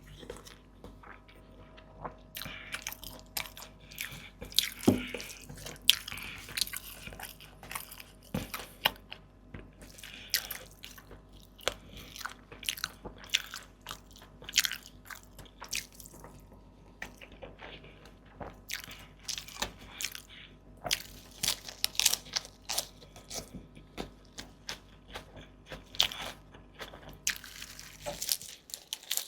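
Close-miked eating: repeated bites and chewing with many short, crisp crunches and clicks, some louder than others.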